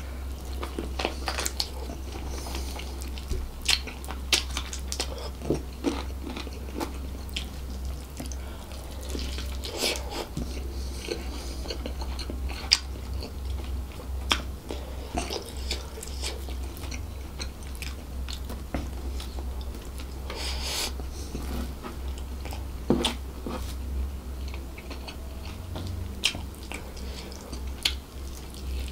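Close-miked mukbang eating sounds: biting into and chewing a sauced fried chicken drumstick and fried rice, with many short wet clicks and smacks. A steady low hum runs underneath.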